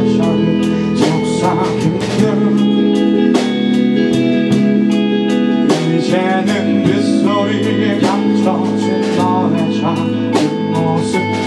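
Live band music, an electric guitar and strummed guitars playing a song's passage with regular strokes and some bent notes.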